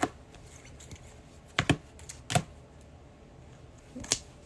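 A handful of short, sharp clicks and taps, scattered unevenly: one at the start, a quick pair, then two more, over a faint low hum.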